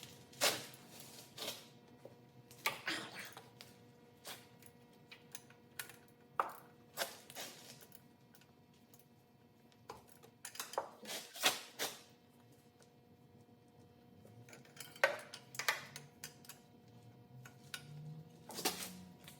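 Hand wrench clicking and clinking against metal while 12 mm nuts are worked off the turbo manifold studs: irregular sharp clicks and taps, some in quick clusters.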